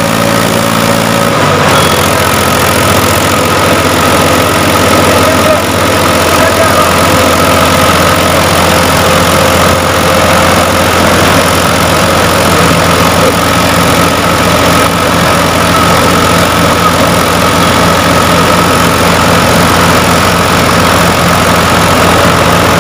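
Two diesel tractor engines, a Mahindra and a Mahindra Trakstar, running hard as the tractors pull against each other in a tug-of-war, a loud steady drone. The engine note shifts about a second and a half in, then holds steady.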